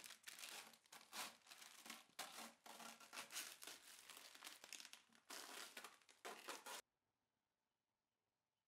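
Masking paper and masking tape being peeled off a vehicle's bodywork: paper crinkling and tearing in quick, irregular rips. It cuts off suddenly about two-thirds of the way in.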